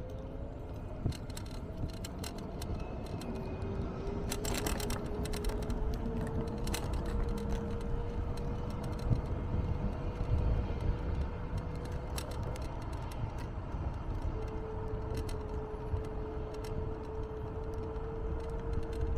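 Electric scooter riding along: a steady motor whine that shifts slightly in pitch, drops out for a couple of seconds past the middle, then returns. Under it runs a low rumble of wheels and wind, with scattered clicks and rattles, a cluster of them about five seconds in.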